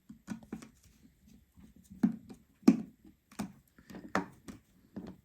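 Irregular small clicks and taps from tools and tiny parts being handled during iPhone reassembly, about a dozen in all, the sharpest one a little before the middle.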